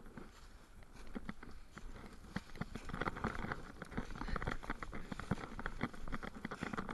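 Dry fallen leaves crunching and rustling under boots and gloved hands as someone scrambles up a steep, rocky slope: a rapid, irregular run of crackles that gets busier about a second in.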